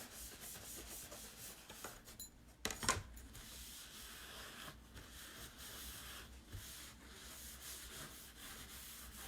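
Faint steady rubbing of a surface being wiped by hand, with a couple of sharp knocks about three seconds in.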